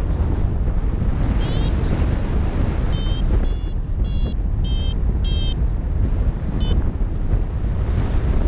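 Airflow buffeting the microphone in flight, with a paragliding variometer giving a short chirp and then about six short high beeps spread over a few seconds, its climb tone signalling lift.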